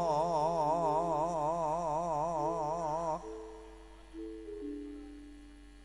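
A man's voice holding a long chanted note in Javanese style with wide, even vibrato. It stops about three seconds in, leaving a few sustained instrumental notes that fade.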